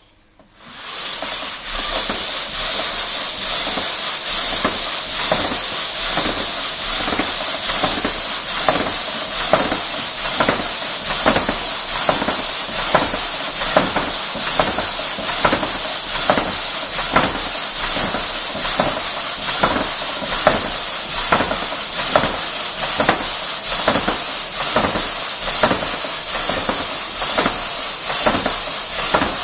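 Thorax Trainer ski ergometer's fan flywheel spinning up from rest about half a second in, then a loud, steady rushing hiss that surges with each double-pole pull, about once a second.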